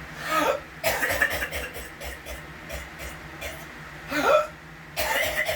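Repeated coughing: about four hacking coughs a second or more apart, some ending in a short rising voiced squeak. It is a persistent habitual cough that the uploader says goes on for hours.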